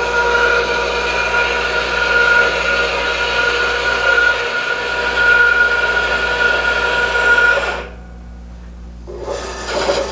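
4x6 horizontal metal-cutting bandsaw running, its motor and blade giving a steady whine with several constant tones. It cuts out about eight seconds in, and a brief rush of noise follows near the end.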